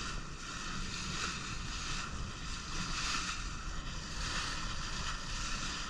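Sea water rushing and splashing along a moving boat, with wind buffeting the microphone; the hiss swells and eases every second or so over a steady low rumble.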